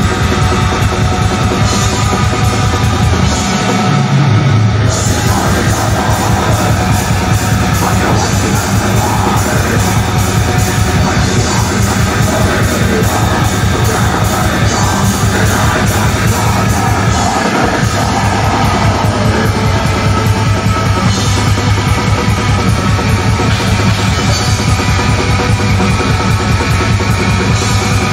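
Black metal band playing live: very fast, dense drumming under distorted guitars, a loud, steady wall of sound. The lowest notes drop out briefly about four seconds in.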